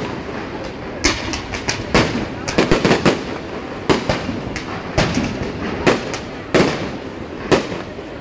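Fireworks going off: a string of sharp bangs at uneven intervals, about one a second, with a quick cluster of several bangs about two to three seconds in.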